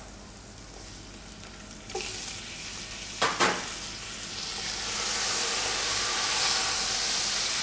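Trotters going into hot oil in a large steel pot of vegetables and frying. The sizzle starts about two seconds in and grows louder as they are stirred with a wooden spatula, with a single knock a little over a second later.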